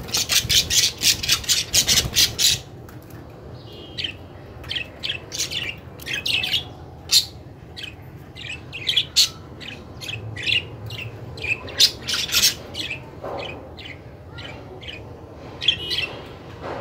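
Budgies chirping and squawking: a fast burst of sharp, harsh calls in the first couple of seconds, then short chirps scattered through the rest.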